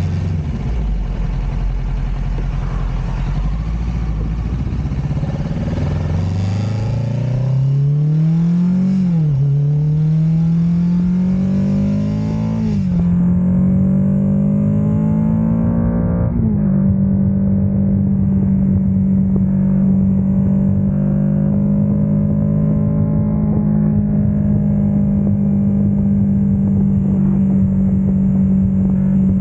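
Kawasaki Ninja 650's parallel-twin engine through an Ixil RC Black Edition slip-on exhaust, accelerating through the gears. The note climbs, then drops sharply with each of three upshifts, before holding a steady pitch at cruising speed for the last dozen seconds.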